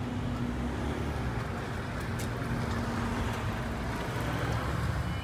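Steady low rumble of road traffic at a level crossing, with a faint low hum that comes and goes.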